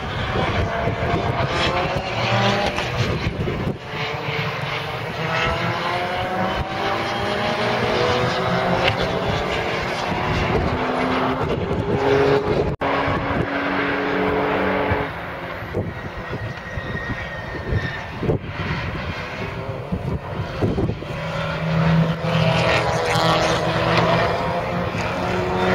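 Radical SR1 race cars passing at speed, their high-revving engines climbing in pitch through the gears and falling away, over several passes.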